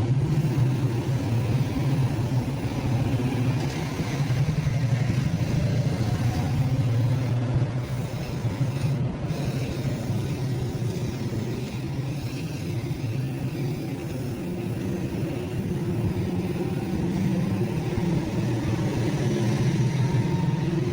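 Steady low hum and rumble of a running motor or engine.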